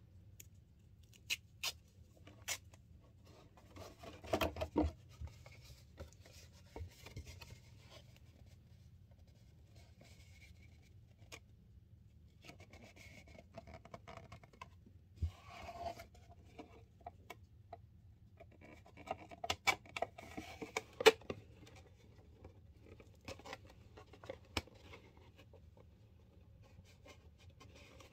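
Adhesive tape being peeled off a small roll and torn, and a thin cardboard box being handled and pressed, in scattered clicks, crackles and rustles that come in bunches, the sharpest snap about twenty-one seconds in.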